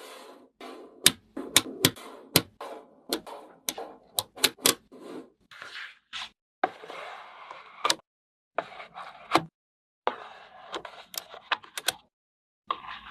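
Handling of small craft and toy materials: many sharp taps and clicks, several a second, with rustling and crinkling between them, in short bursts that cut off abruptly.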